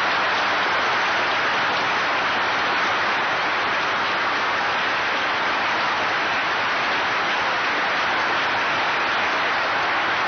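Large audience applauding, a dense, steady sustained clapping with no letup.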